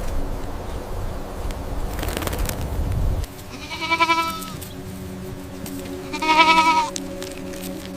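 A low rumble that cuts off abruptly about three seconds in, then two short, wavering bleats from livestock, the second louder.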